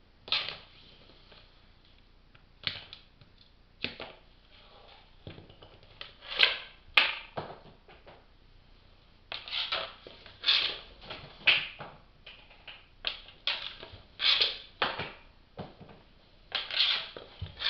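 Hockey stick shooting a puck on a hard floor: a dozen or so sharp clacks and scrapes as the blade slaps the floor and strikes the puck, spaced irregularly a second or so apart.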